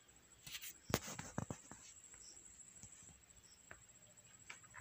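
Faint taps and rubbing of a fingertip on a smartphone touchscreen while scrolling and selecting: a few soft clicks about a second in and again near the end.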